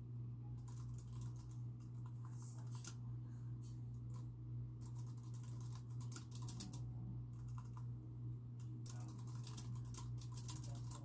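Typing on a computer keyboard: quick irregular runs of key clicks with brief pauses between them, over a steady low hum.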